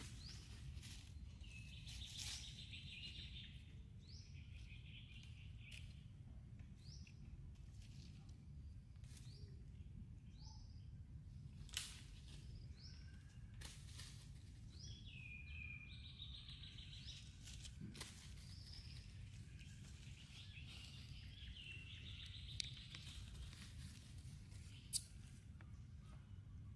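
Faint outdoor ambience: a steady low rumble with scattered bird chirps and short trills, and a few sharp clicks.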